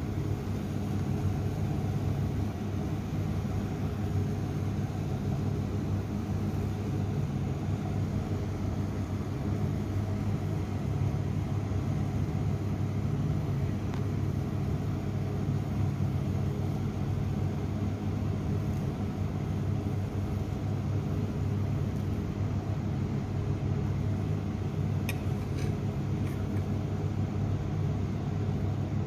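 A steady low mechanical hum that does not change. Near the end come a few light clicks, like a metal spoon knocking against the pot.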